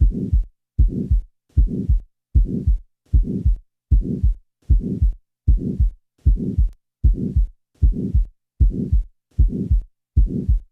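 Heart sounds with a mid-systolic (ejection) murmur, about 80 beats a minute. Each beat is a first heart sound, then a crescendo-decrescendo murmur that dies away clearly before the second heart sound.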